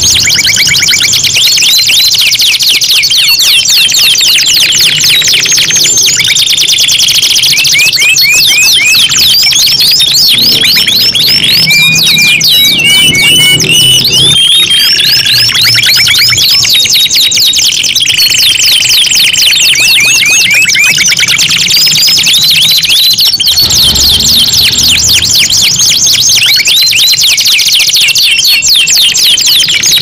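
Domestic canaries singing without a break: fast rolling trills and rapid runs of high repeated chirps, with more than one song sounding at the same time.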